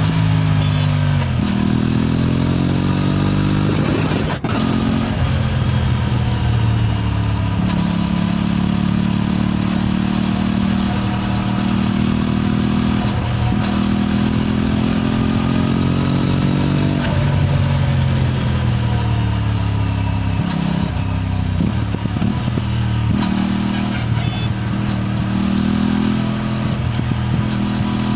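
Aprilia RS 457's parallel-twin engine heard while riding: engine speed drops at the start, runs steady for several seconds, then falls and climbs again through the second half. A single sharp click comes about four seconds in.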